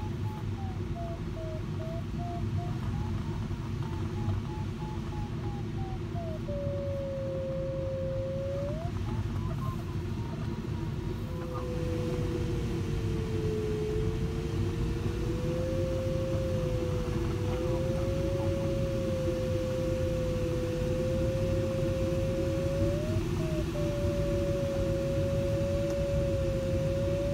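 A glider variometer's audio tone over the steady rush of air past the cockpit of a LAK17a sailplane. The tone beeps and wavers in pitch for the first six seconds or so, a sign of the glider climbing, then turns into a lower continuous tone that drifts slowly up and down, a sign of it sinking.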